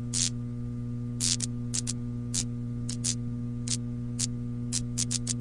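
Steady electrical hum with short, irregular crackles of static, like a buzzing neon sign flickering.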